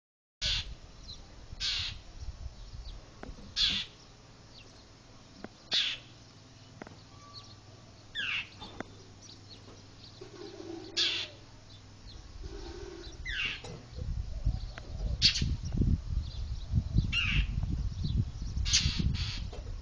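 A bird giving short, harsh alarm calls again and again, about one every two seconds, some sliding down in pitch: mobbing calls aimed at a cat. From about two thirds of the way in, a low rumble on the microphone joins the calls.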